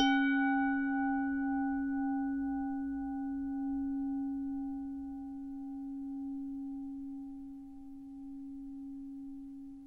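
A singing bowl struck once, giving a low ringing tone with higher overtones that pulse gently. The highest overtones die away within a few seconds, while the low tone fades slowly and is still sounding near the end.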